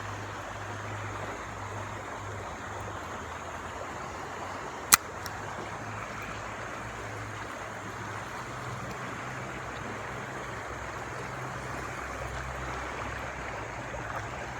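River water rushing steadily over shallow rapids, with a single sharp click just under five seconds in.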